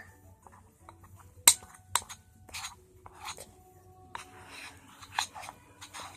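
A spoon clinking and scraping against a container while a thick slime mixture is stirred, with a sharp clink about a second and a half in and another at two seconds.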